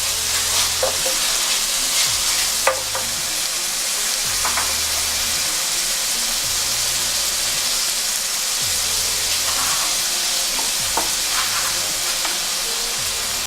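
Vegetables stir-frying in hot oil in a pot: a steady sizzle, with short scrapes and knocks now and then as they are stirred.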